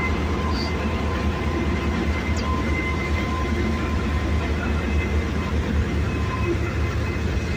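Diesel-electric locomotive idling close by: a steady low engine rumble with a faint constant whine on top.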